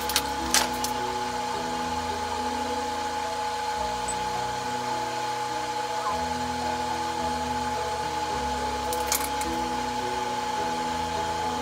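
A steady motor hum with a constant high whine, under soft background music. A few light clicks just after the start and once about nine seconds in.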